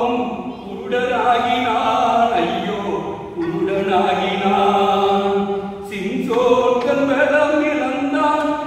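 A man singing a Tamil Christian song unaccompanied into a microphone, in long held notes with short breaks between phrases.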